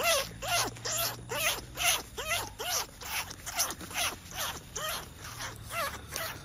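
Rat-calling squeals aimed at luring greater bandicoot rats: a steady run of squeaky calls, about two and a half a second, each one rising and then falling in pitch.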